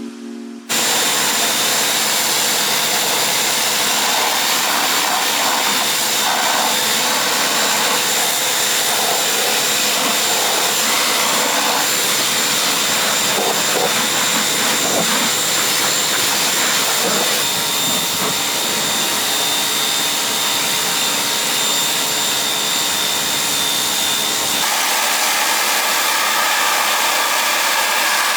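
Loud, steady rushing of a machine with a thin high whine, starting abruptly about a second in; the sound changes character, losing its low end, about 25 seconds in.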